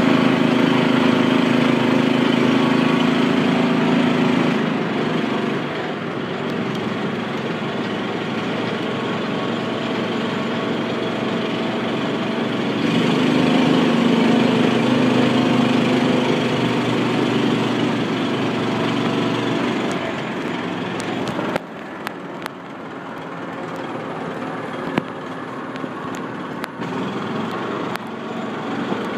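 Off-road buggy engine running while driving over a dirt track, its note swelling twice as it speeds up, then dropping to a quieter run a little past two-thirds of the way through, with a few short knocks and rattles.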